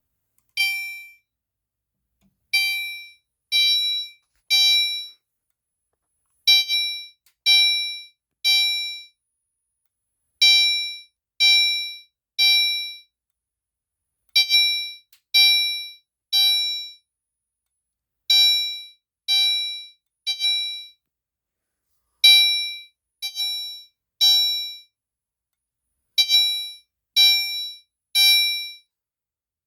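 Gentex Commander 3 horn strobe on its chime setting, sounding a temporal-three pattern: three chime strikes about a second apart, each ringing off, then a pause, repeating.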